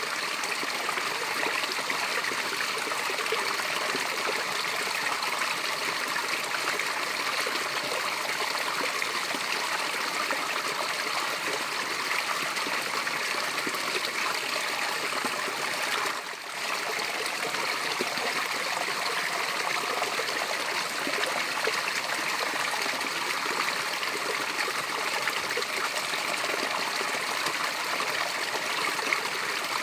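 Small waterfall splashing steadily: a continuous, even rush of falling and running water, strongest in the upper-middle range, with a brief dip in level a little past halfway.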